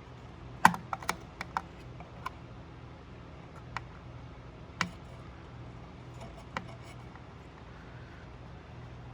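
Light clicks and knocks of small hand tools and clock parts being handled: a quick cluster of taps about a second in, then single taps every second or two.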